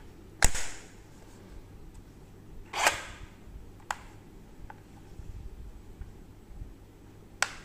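Handling noise from a DeWalt DCS382 cordless reciprocating saw's plastic housing being turned over in the hands: a few sharp clicks and a short scrape. The motor is not running.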